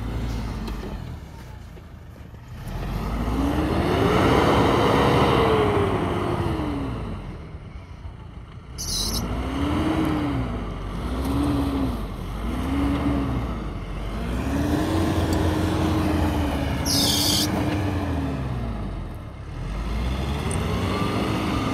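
Nissan Pathfinder R51's 2.5 dCi four-cylinder turbo-diesel revving again and again as it works through deep, frozen snow: one long rise and fall about three seconds in, then a run of short revs and several longer ones.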